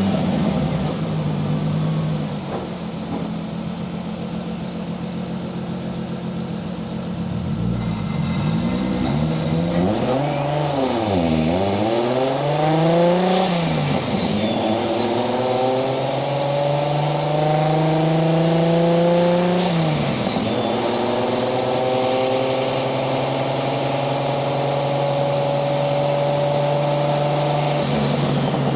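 Single-turbo 1JZ VVTi inline-six in a Nissan 240SX pulling through the gears. The engine note climbs with a rising turbo whistle, dips at two gear changes, then holds steady at cruise with the whistle still sounding.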